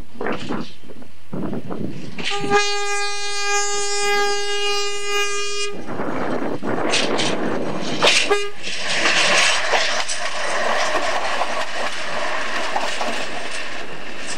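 Nohab Series 100 diesel railcar sounding its horn in one long steady blast of about three and a half seconds, with a brief second toot a few seconds later. Between and after the blasts the railcar's engine and wheels rumble and rattle on the track as it passes.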